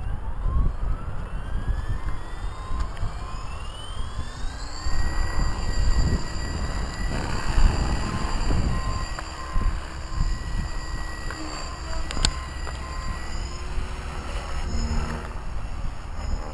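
Blade 360 CFX electric RC helicopter spooling up: a whine from its brushless motor and rotor drive rises over about five seconds, then holds steady in flight with small dips in pitch near the end. Heavy wind rumble on the microphone.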